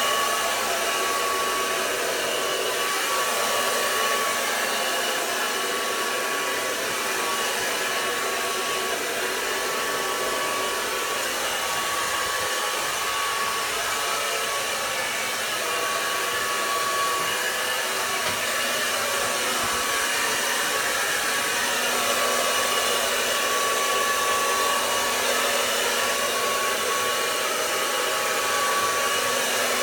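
Handheld hair dryer running steadily, blowing on long hair to straighten it, with a thin whine that drops out and comes back.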